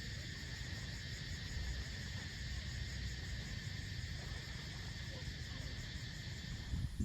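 Steady chorus of insects, crickets or cicadas, trilling without a break in a high, even shimmer, over a low rumble.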